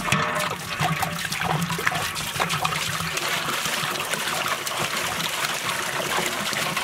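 Water gushing from a hose and a poured stream into a large aluminium cooking pot, splashing steadily on the metal as the pot fills.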